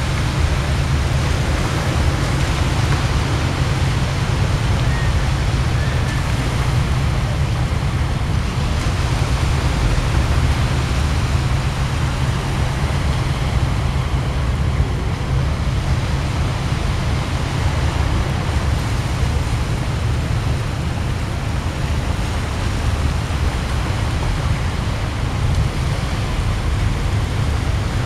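Steady seaside ambience: a low wind rumble on the camera's microphone over an even hiss, with no distinct events.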